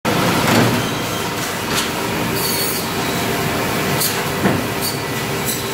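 Meat bandsaw running steadily with a low hum, short high squeals and several knocks as a lamb carcass is cut into primals.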